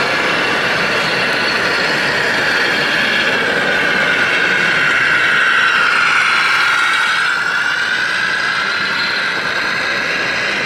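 Radio-controlled model heavy-haulage truck driving past close by, giving a steady high mechanical whine that sags slightly lower in pitch partway through.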